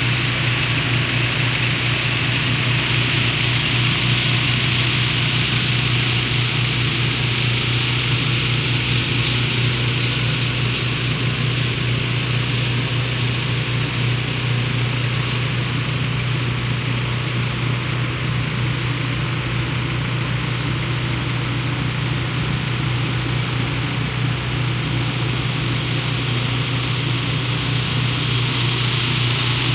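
Farm tractor engine running at a steady speed, powering a tank sprayer, with a steady hiss over the low hum.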